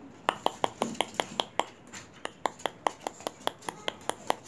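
Small dogs' claws clicking on a wooden deck as they hop about on their hind legs: a quick, uneven run of sharp taps, about four or five a second.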